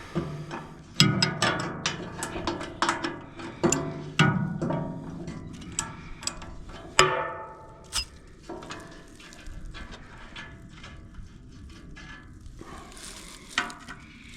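Metal clinks and clanks of hand tools and loose parts being worked on a wood chipper's frame and guard. They come thick and irregular for the first half, then thin out to a few knocks.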